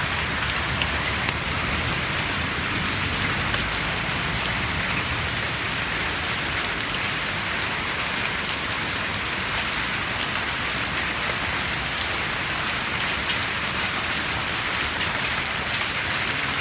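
Heavy downpour: steady rain hissing, with many individual drops pattering and ticking close by.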